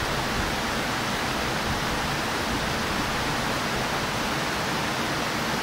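A steady, even rushing noise that holds at one level throughout, with no strikes or changes.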